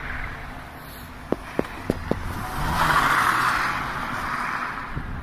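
A BMW 3 Series car drives past: a rush of engine and tyre noise swells to its loudest about three seconds in and then fades as it moves away. A few sharp clicks come just before it.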